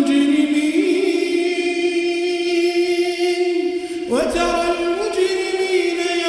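A man's voice reciting the Quran in a melodic, chanted style, holding one long drawn-out note. About four seconds in, a new phrase begins with a rising glide.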